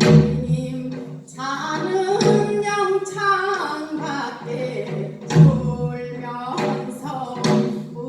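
A woman singing a Gyeonggi minyo (Korean folk song) in a bending, ornamented line, accompanied by a janggu hourglass drum. There are two heavy drum strokes, one at the start and one about five and a half seconds in.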